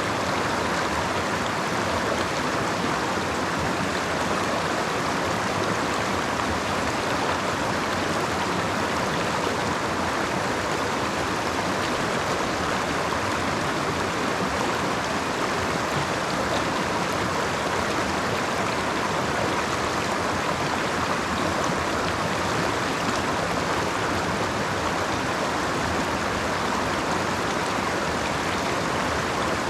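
Oak Creek's water flowing in a steady, unbroken rush.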